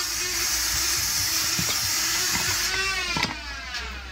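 A steady mechanical whir, like a motor-driven shop tool running, that stops about three seconds in with a brief rising whine.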